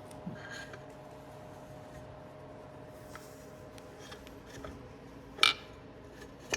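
Metal engine parts being handled and fitted into a small engine's crankcase: light scattered clicks and taps, with one sharp metallic clink about five and a half seconds in, over a faint steady hum.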